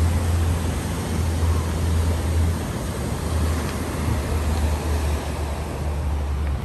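Waves breaking and washing up a pebble beach, over a steady low rumble of wind on the microphone.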